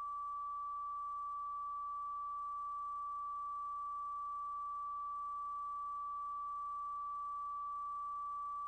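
A single steady electronic tone, fairly high and held without any change, over a faint low hum.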